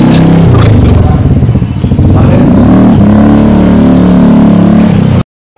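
Motorcycle engine running very close and loud, its pitch shifting up and down. It cuts off suddenly near the end.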